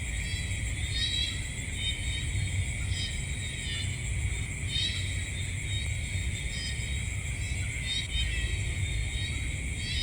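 Night insect chorus: a steady high-pitched trilling in several layers, with short chirping calls repeating about once a second, over a low rumble.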